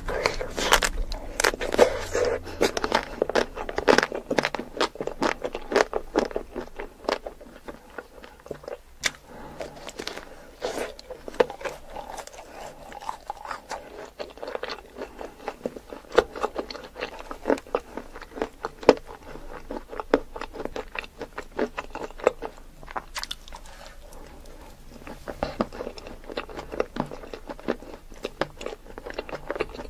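Close-miked bites into the hard chocolate shell of ice cream bars: crackling, crunching snaps with chewing in between. The crackles come thickest in the first few seconds.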